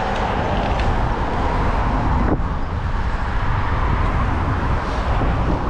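Motor traffic going by close to a bicycle at a busy roundabout, with a steady low rumble of wind on the camera microphone.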